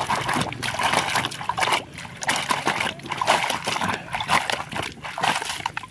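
Muddy water in a plastic bucket splashing and sloshing irregularly as a hand swishes and scrubs a toy truck through it.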